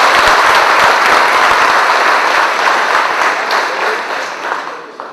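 Audience applauding: many people clapping at once, a dense, even clatter that begins to die away about four seconds in.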